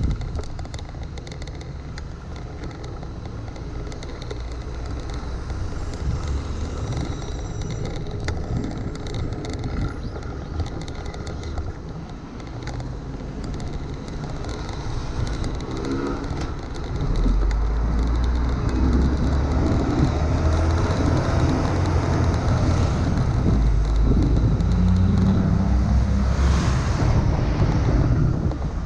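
Road noise from a fixed-gear bicycle ridden through city traffic in the rain: a steady rush of tyre and wind noise with passing motor traffic. About halfway through it turns louder with a heavy low rumble, as vehicles run close alongside.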